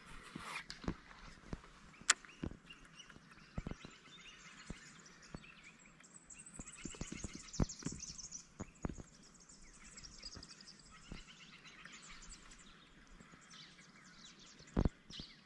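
Birds chirping faintly in the background, most from about six seconds in, with scattered light clicks and knocks close by, a louder knock near the end.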